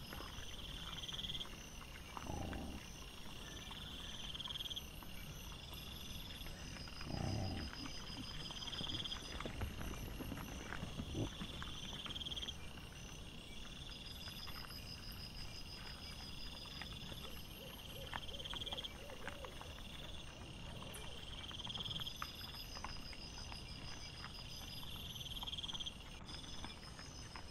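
Night insects trilling in regular repeated phrases, over the rustling and snuffling of wild boar rooting and feeding on scattered grain, with two short low grunts from the boar about two and seven seconds in.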